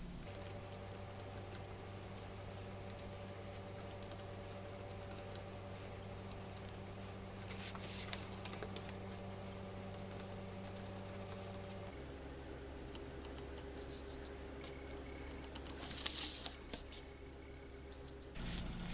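Small paintbrush scratching and tapping as it works liquid latex over plastic bones and trash-bag plastic, with two louder bouts of scratchy clicks about 8 and 16 seconds in. Under it runs a steady low drone that changes pitch about two-thirds of the way through and stops just before the end.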